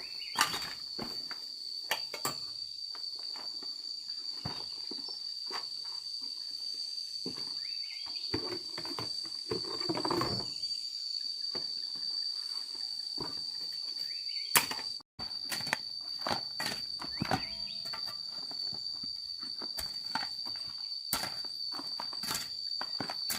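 Insects chirring in one steady high-pitched tone, with scattered knocks and taps over it.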